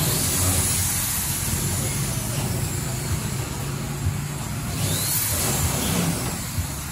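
Car engine running at low speed as a car drives slowly past, a steady low hum.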